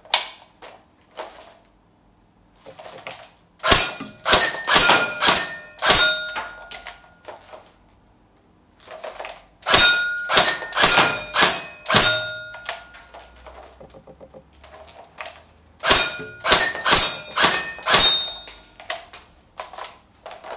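Tokyo Marui FA-MAS 5.56-F1 electric airsoft gun fired in three quick strings of semi-automatic shots, about eight shots in two and a half seconds each. BBs strike steel target plates among the shots, and the plates ring.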